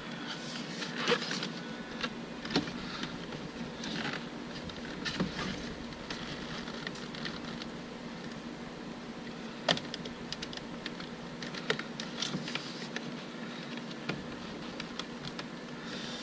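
Scattered small plastic clicks and rustling as hands work a cigarette-lighter wiring plug and the shifter boot loose in a car's center console, with a few sharper snaps.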